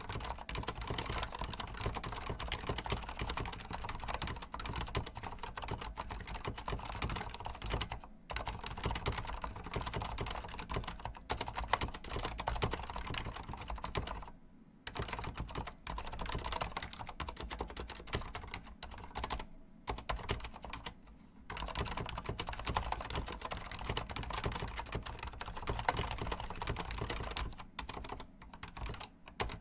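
Steady fast typing on a Corsair Strafe mechanical keyboard with Cherry MX Silent switches: a dense run of quick keystroke clicks, broken by a few brief pauses.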